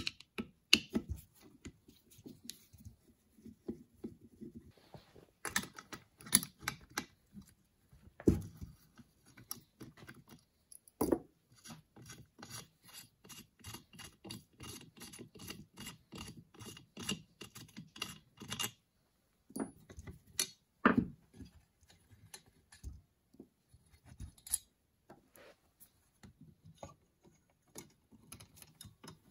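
Hand tools working on a Motorcraft 2150 carburetor's top cover: scraping and rubbing of metal parts with scattered knocks. Through the middle comes a run of steady, rapid clicking, about five clicks a second for several seconds, like a ratchet turning out the cover screws.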